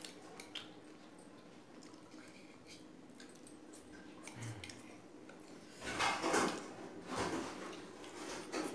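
Eating sounds at a meal of noodles: small clicks of a spoon or chopsticks on a plate, mostly quiet, with louder scraping or slurping sounds about six and seven seconds in.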